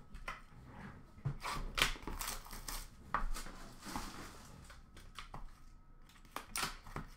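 A small cardboard box of trading cards being handled and opened on a glass counter: scattered light taps, scrapes and rustles, with a few sharper clicks.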